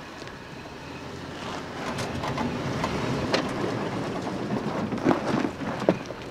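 Toyota 4Runner driving slowly over a rocky dirt track: its tyres crunching on gravel, with sharp pops and clicks of stones under the tyres. The crunching grows louder about two seconds in as it passes close by.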